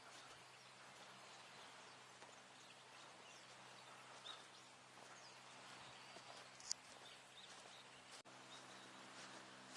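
Near silence: faint outdoor ambience with scattered faint high chirps and one sharp click about two-thirds of the way in.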